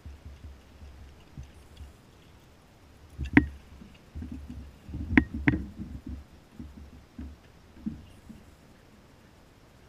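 Fishing rod and reel being handled in a plastic kayak: a run of knocks and rattles against the hull, with three sharp, loud knocks between about three and six seconds in, over a low rumble.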